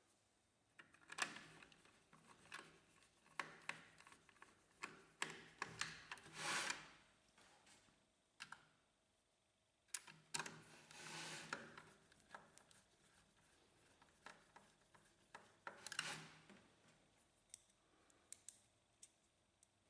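Faint clicks and scraping of a small screwdriver driving screws into the metal side panel over a laser printer's gear assembly, with two longer scraping stretches.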